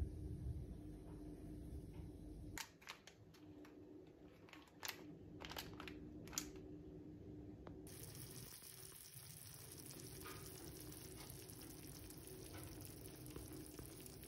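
Faint sizzling and crackling from a hot tray of baked meatballs in tomato sauce: a few sharp pops in the first half, then a steady fine sizzle from about eight seconds in.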